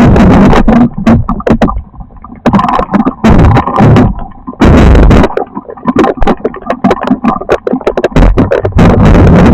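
Thunderstorm noise loud enough to overload the microphone, surging and falling back every second or so, with many sharp cracks and hits throughout.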